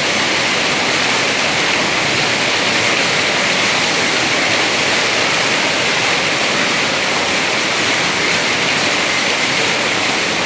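Heavy rain pouring down steadily in a rainstorm, a loud continuous rush with no letup.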